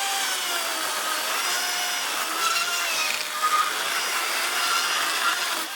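Battery-powered electric chainsaw cutting through wood: a steady motor whine that sags and wavers in pitch as the chain bogs under load, stopping near the end.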